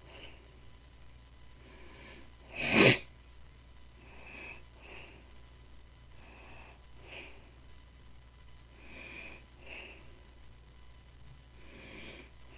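A man breathing close to the microphone, a soft breath in and out every two to three seconds, with one sudden loud burst of breath, like a sneeze, about three seconds in.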